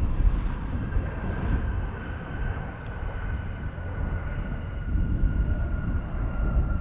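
Embraer E175 jet's GE CF34 turbofans running with a steady high whine that drifts slowly lower in pitch, over a heavy, gusting rumble of wind on the microphone.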